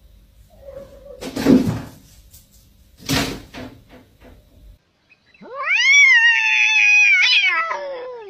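A cat's long, drawn-out meow in the second half: it swoops up sharply, holds for about two seconds, then falls away. Earlier there are two brief noisy bursts, each under a second.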